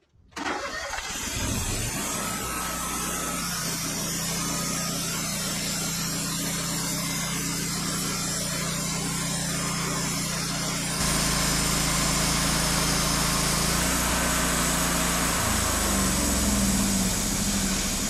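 Wood-Mizer LT40 band sawmill's engine starting and then running steadily. About eleven seconds in it gets suddenly louder as the band blade saws through the cherry log, and the engine note wavers under load near the end.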